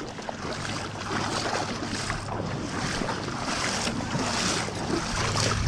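Shallow river water rushing and rippling over stones, heard from right at the water surface, with wind on the microphone. A steady rushing noise that grows gradually louder.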